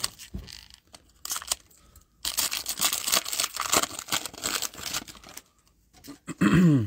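Plastic wrapper of a Panini Chronicles football card pack being torn open and crinkled by hand, a few short crackles followed by about three seconds of dense crinkling. Near the end comes a brief loud pitched sound that falls in pitch.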